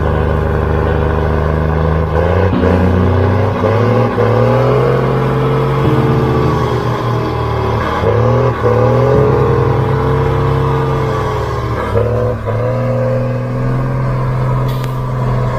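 Heavy diesel truck engine running loud, its pitch dipping and climbing back several times.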